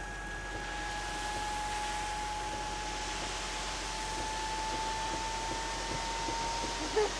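Gravel truck running with a steady whine that slowly rises in pitch, while a hiss builds from about two seconds in; a short blip just before the end.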